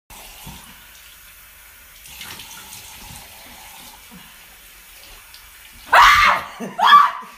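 Tap water running into a bathroom sink as someone splashes their face, a steady hiss. About six seconds in a woman lets out a loud scream, with a second shorter cry just before the end.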